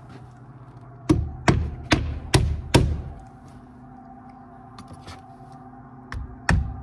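Hammer driving 2-inch electro-galvanized roofing nails through a window's nailing flange to tack its corners: five quick strikes about a second in, then two more near the end.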